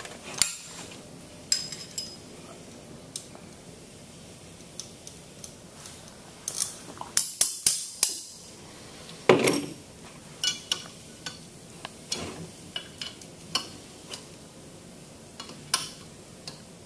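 Wrench and stainless steel tubing fittings on a pneumatic chemical injection pump clinking and knocking as the tubing is loosened and taken off. The sharp metal clicks come in scattered ones and twos, with a quick run of clatter about seven seconds in and the loudest knock a couple of seconds after.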